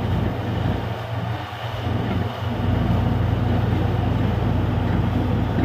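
Borewell drilling rig running steadily with a deep, even machine rumble and hiss; the lowest part of the rumble drops away briefly about a second in, then returns.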